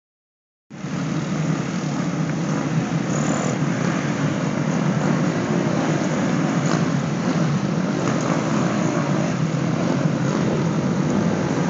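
A line of street and sport motorcycles riding past at low speed, their engines blending into a steady, even drone that starts just under a second in.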